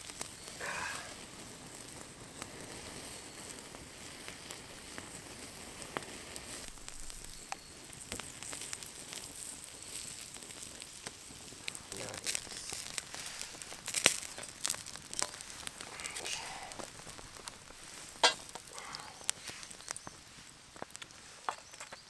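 Wood campfire crackling under food sizzling on it: meat on a grill grate, then a frying pan set over the flames. A steady hiss with scattered sharp pops, two louder ones in the second half.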